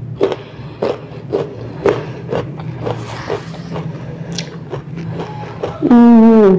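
Crisp chewing of a bite of raw ambarella (kedondong) fruit, about two crunches a second. Near the end a loud closed-mouth "mmm" hum, falling in pitch.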